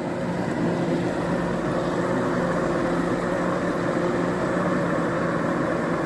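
Seagull Pro robotic pool cleaner scrubbing the water line with its top out of the water: its pump motor runs as a steady hum, with water spraying up from its outlet.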